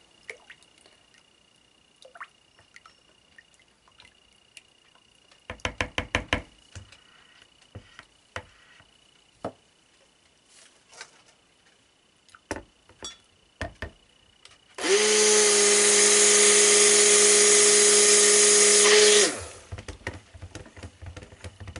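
Hand-held stick blender running steadily for about four seconds in a bowl of liquid soap oils, starting about fifteen seconds in and cutting off sharply. Earlier, a quick run of light knocks and a few scattered clicks.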